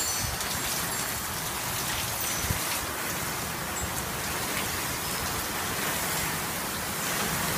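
Heavy rain mixed with small hail falling on a lawn, street and house, a steady dense hiss with a few faint ticks.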